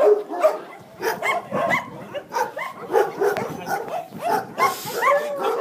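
Many dogs barking and yipping at once, short overlapping calls with no let-up.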